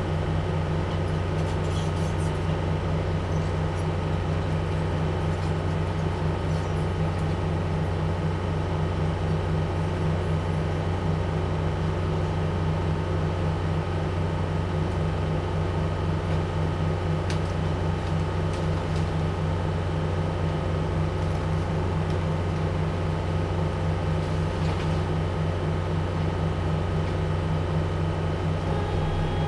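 Heavy-equipment diesel engine running steadily under load, a constant low drone with no change in pitch.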